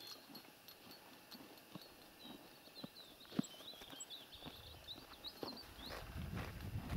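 Faint songbird warbling, thin quick wavering chirps, with scattered soft clicks and rustles close by; a low rushing noise builds toward the end.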